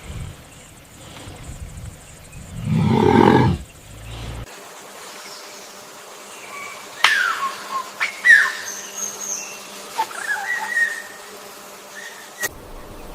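An animal's loud roar lasting about a second, then, after a sound cut, birds chirping with short falling whistles and a few sharp clicks.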